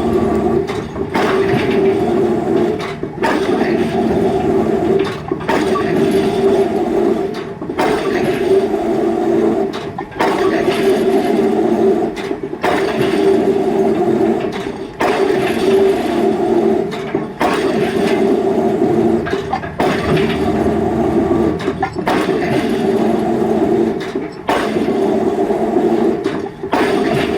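Excavator diesel engine running steadily under load while its drop hammer works a square concrete pile, with a regular blow about every two seconds.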